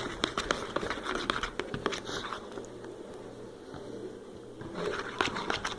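Slime being stirred in a bowl: a run of small sticky clicks and crackles, quieter in the middle, as the glue mixture begins to set.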